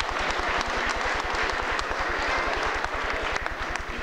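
Crowd applauding, a dense patter of many hands clapping that dies away near the end.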